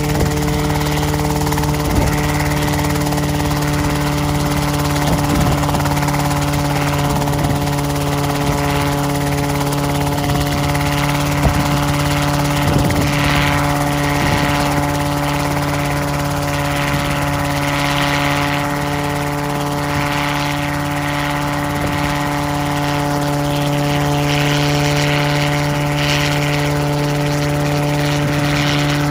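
Small helicopter running on the ground before takeoff, engine and main rotor turning steadily at speed. A steady hum of several tones with a rushing noise that swells and fades over it.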